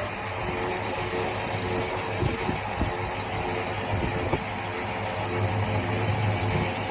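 Steady low hum of the catamaran's engine running, over a haze of wind noise.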